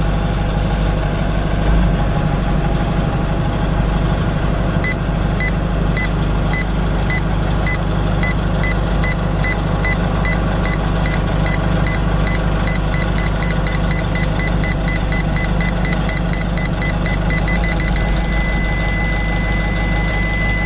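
Aftermarket reversing parking-sensor buzzer beeping at one steady pitch. It starts about five seconds in at about two beeps a second and speeds up as the obstacle gets closer. Near the end it turns into one continuous tone, the danger warning that the vehicle is at the closest range of about 0.3 m. Underneath, the Nissan Navara's engine runs steadily.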